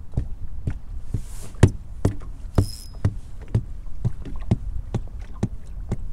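Feet stomping on a boat floor in a steady rhythm, about two dull thumps a second. The noise is made to draw white bass (sand bass) up under the boat.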